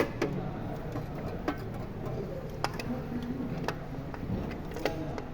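Irregular sharp clicks and knocks, about six of them, as a car starter motor and its bolts are handled and fitted onto an engine stand.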